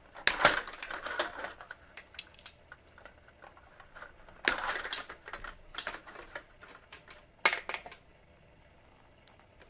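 Wire cutters snipping the wires off an old fluorescent light ballast: three loud sharp snips, one near the start, one about halfway and one about three-quarters through, with lighter clicks and handling noise between them.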